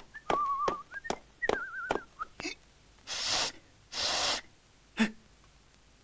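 Cartoon sound effects: a man whistling a short tune with a wavering pitch over evenly spaced clicking footsteps, then two breathy puffs about a second apart.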